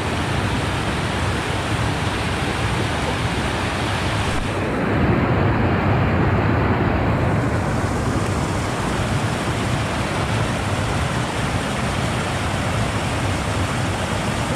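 Loud, steady rushing of moving water, with a deeper, louder surge about five to seven seconds in.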